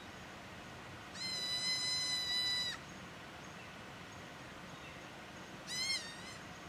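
Nubian ibex kid bleating: one long, high, steady bleat, then a shorter one near the end that rises and falls.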